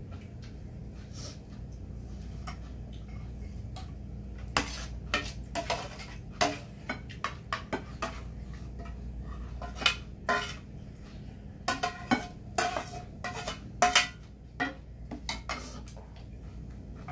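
Metal ladle and chopsticks clinking and scraping against a thin metal ramen pot and metal bowls as noodle soup is served out. A run of sharp clinks starts about four seconds in and grows busiest near the middle, over a low steady hum.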